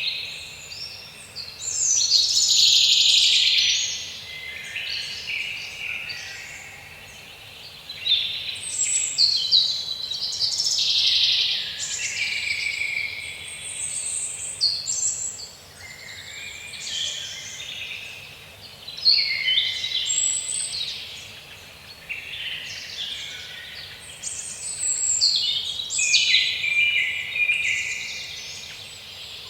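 Birds chirping and singing, many quick overlapping calls high in pitch, swelling and fading in loudness.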